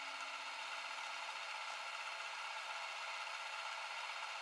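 Steady hiss from a Kenwood KRC838 car stereo with no programme playing, and a faint low hum that fades out about halfway.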